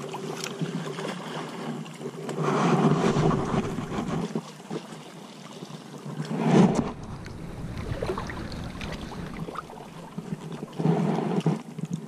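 Lake water sloshing and splashing right at the microphone, with wind noise. The noise swells louder a couple of seconds in and again about two-thirds through.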